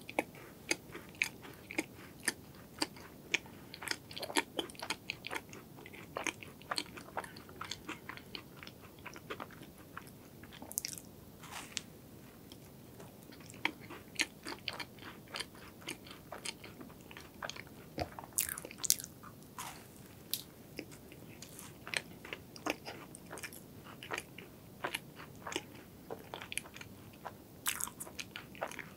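Close-miked chewing of a soft pink cream dessert, with many small wet mouth clicks and smacks scattered irregularly throughout.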